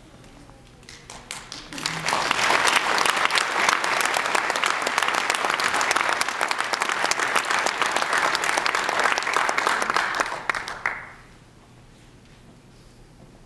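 Audience applauding. It builds over the first two seconds, holds steady for about nine seconds, and dies away about eleven seconds in.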